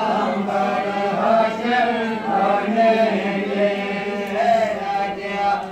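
Mantras being chanted during a Hindu sacred-thread ceremony, in a continuous sing-song recitation over a steady low tone.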